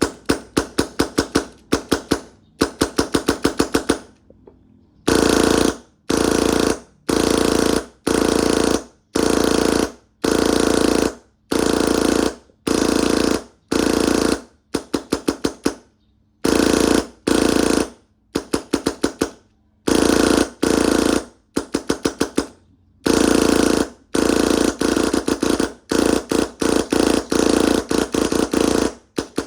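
Paintball marker firing in repeated rapid bursts of about a second each, each burst a quick string of sharp shots at about ten a second with short pauses between bursts. This is the marker being test-fired after its trigger board repair and trigger limit setup.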